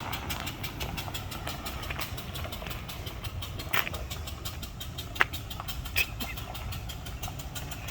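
A vehicle engine idling steadily, with a few sharp clicks about four, five and six seconds in.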